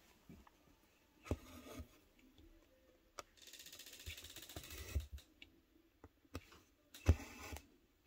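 A door creaking open: a drawn-out raspy creak of about a second and a half, with a few short knocks around it and a thump near the end.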